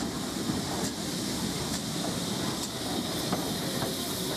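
Steam tank locomotive running slowly past at close range, with a steady hiss of steam over a low rumble and a regular click about once a second.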